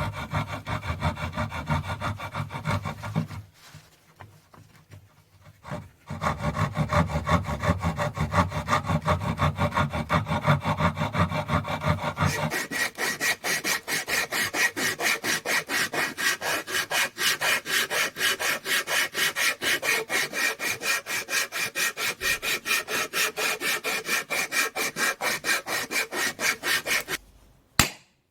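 Rhythmic back-and-forth rasping of a hand tool working wood, sawing or filing in steady strokes. It pauses for a couple of seconds near the start, then from about halfway it changes to a brighter, faster run of strokes.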